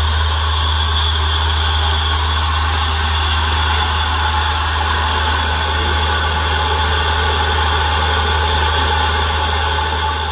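Micro gas turbine running steadily: a jet-like rush with a constant high whine over a deep hum.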